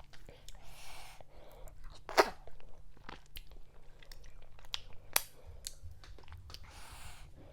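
Close-up mouth sounds of eating fufu with okra vegetable soup: wet chewing with sharp sticky smacks and clicks, the loudest about two seconds in and another about five seconds in, with a couple of soft breathy rushes between bites.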